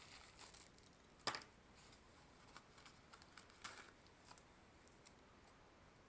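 Near silence with faint handling of packaging: a few soft clicks and rustles, the clearest about a second in and again near four seconds.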